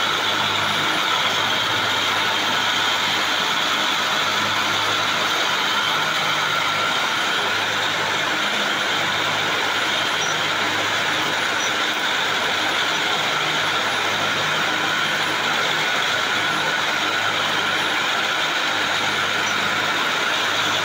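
Ring spinning frames running in a cotton spinning mill: a loud, steady mechanical din of many spindles turning, with a constant low hum beneath.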